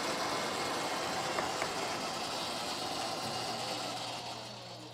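Warner & Swasey No. 2 turret lathe running during a parting-off cut, a steady machine noise. It fades over the last second or so, leaving a steady low hum.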